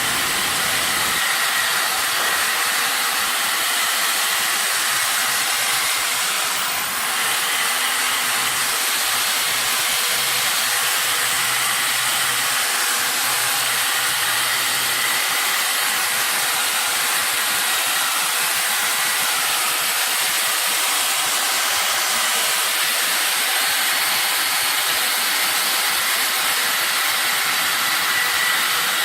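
Steady, loud hiss of blowing air, unbroken and even, with a brief dip about seven seconds in.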